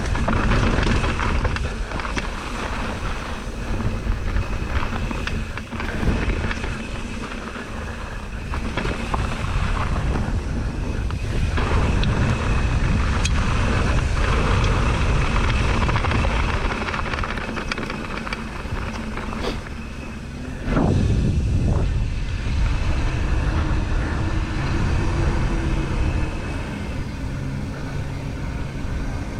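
Wind rushing over the microphone, with the rattle and sharp knocks of a downhill mountain bike running over a rough trail.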